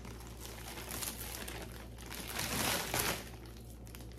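Crinkling of packaging as jewelry is unwrapped and handled, a few small clicks among it, loudest a little past halfway, over a low steady hum.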